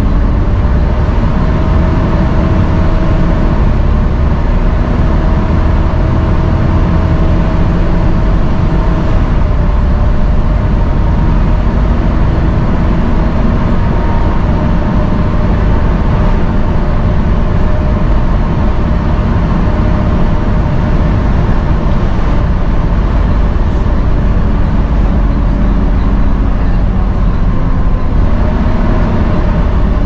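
Volvo B7TL double-decker bus under way, heard from the upper deck: a loud, steady drone over heavy road rumble, with a hoover-like whine held at an even pitch and sagging slightly near the end.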